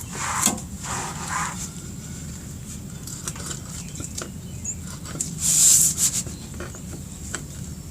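Scattered light clicks and clinks with short scraping noises from hands working the rear wheel and drive chain of a motorcycle, with one louder, brief scrape about five and a half seconds in.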